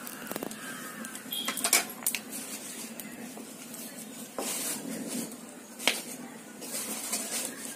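A perforated steel ladle knocks against an aluminium pan a few times during cooking over a wood fire on a clay stove. There are short bursts of hiss and crackle between the knocks.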